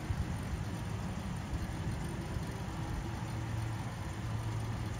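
Boeing 747-400's four General Electric CF6 turbofan engines running at low thrust as the freighter taxis onto the runway: a steady low rumble.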